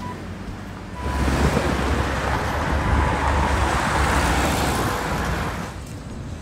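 Road traffic: a vehicle passing close by, its tyre and engine noise swelling about a second in and fading away near the end.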